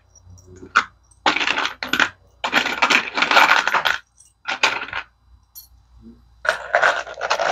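Loose metal screws clinking and rattling against each other in plastic organizer trays as they are scooped and sorted by hand, in several bursts of about a second or more.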